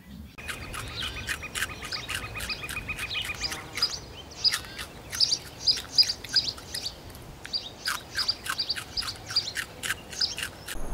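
Birds chirping: many short, sharp calls in quick succession, with a steady high trill during the first few seconds.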